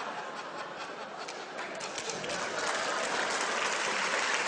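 Audience applause, the clapping growing denser about two seconds in.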